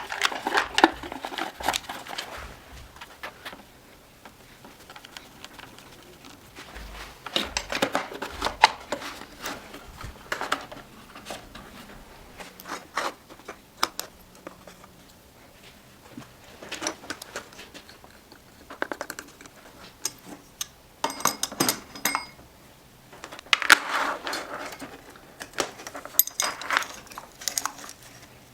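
Irregular clicks, clinks and knocks of small metal and plastic parts and hand tools being handled, coming in bursts with short pauses, with a brief ringing metallic note about three quarters of the way through.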